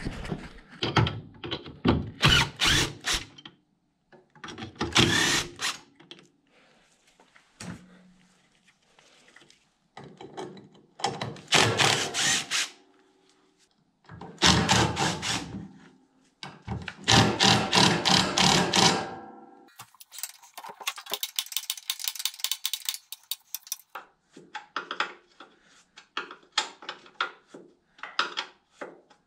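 Hand tools working on the excavator's cooling-system fittings: a series of separate bursts of rapid clicking and clanking, each a second or two long, with short pauses between.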